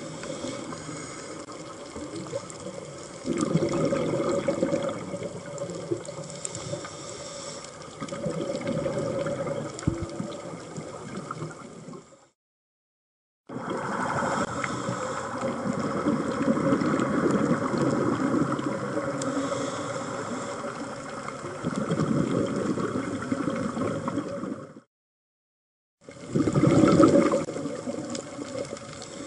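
Underwater sound picked up by a diving camera: surges of bubbling, typical of a scuba diver exhaling through the regulator, come every few seconds over a steady watery hiss and faint hum. The sound cuts out completely twice, for about a second each time.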